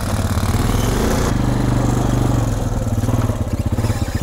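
ATV engine running under the rider while riding across snow. It eases off about a second in and settles to a slower, even low-rev pulse near the end as the quad slows.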